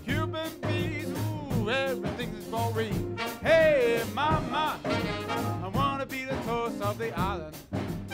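Swing-style music led by brass, horn lines over a steady beat, with sliding horn notes and a loud falling one about three and a half seconds in.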